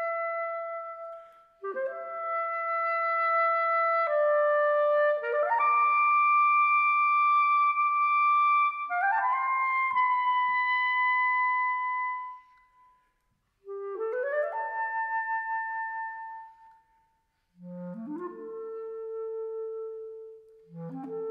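Solo clarinet in A playing phrases in which quick upward grace-note runs land on long held notes, separated by brief pauses. The last two phrases are softer and lower in pitch.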